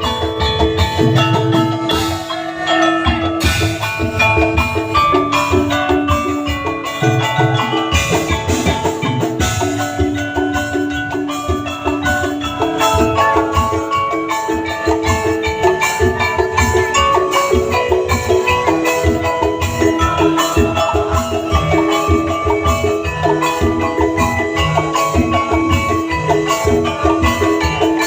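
Tongklek music: an ensemble of tuned bamboo percussion playing a fast, steady melody of struck pitched notes over regular low drum beats.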